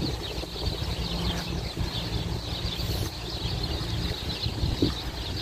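Strong wind rumbling on the microphone, with many small birds chirping steadily in the background.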